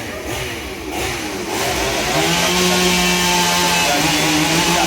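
Small petrol engine revving up and then running steadily at high speed, its pitch wavering for the first second or so before climbing.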